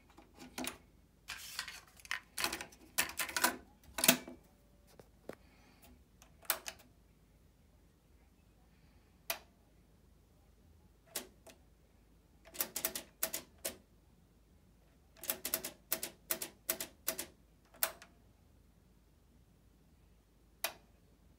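Front-panel buttons and tape transport mechanism of a Harman Kardon CD201 cassette deck clicking and clunking as they are operated, in several quick clusters of sharp clicks with pauses of a few seconds between them.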